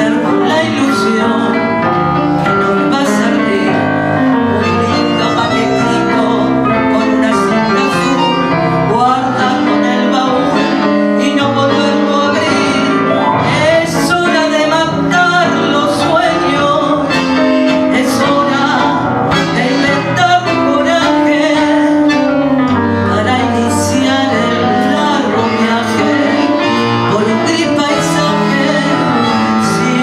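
Tango trio of piano, guitar and bandoneon playing an instrumental passage.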